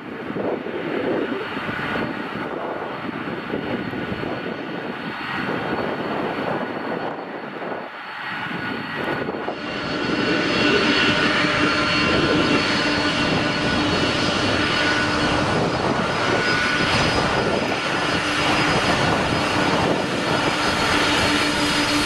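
Jet engines of a taxiing Boeing 767 running at low taxi power, a steady rushing sound. About ten seconds in it gets louder and brighter, with a steady whine over the rush.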